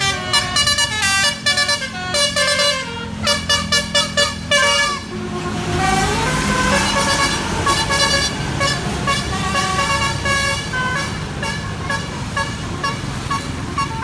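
Bus telolet horn playing quick runs of short multi-tone toots that jump in pitch, over a bus engine running. About six seconds in a tone rises, and shorter horn notes keep coming after it.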